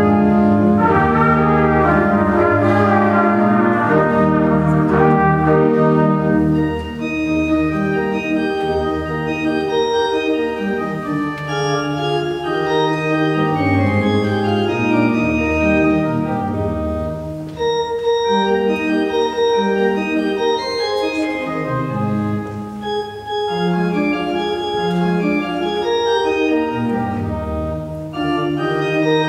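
Trumpet and church organ playing a slow piece together, the organ holding sustained chords under the melody. It is fullest for the first several seconds, then eases and swells again with the phrases.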